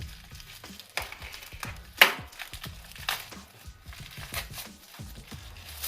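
Pocket watch packaging being pried open by hand: crinkling and scraping with a series of sharp clicks and knocks, the loudest about two seconds in.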